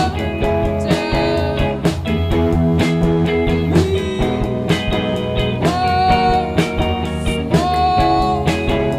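Background rock music led by guitar over a steady drum beat, with a held note bending upward twice.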